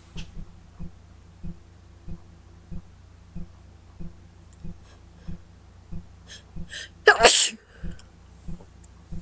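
A woman with a cold takes a few short hitching breaths, then sneezes once, loudly, about seven seconds in. A soft low thump repeats steadily about every two-thirds of a second underneath.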